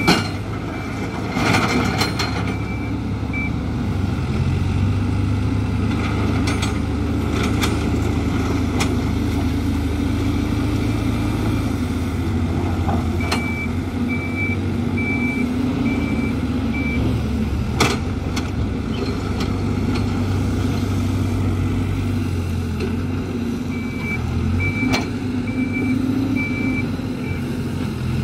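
Hidromek 102B backhoe loader's diesel engine running under changing load, its pitch rising and falling as it works. A reversing alarm beeps in three spells: at the start, about halfway through, and near the end. There are occasional sharp clanks.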